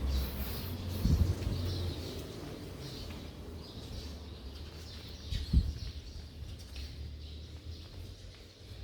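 Sparrows chirping again and again over a low steady rumble, with a thump about a second in and a sharper, louder thump about five and a half seconds in.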